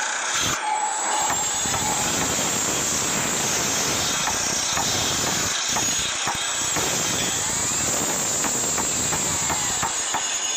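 A steady, loud hiss with scattered clanks and a few short squealing glides, a sound track laid over the montage rather than anything heard in the picture.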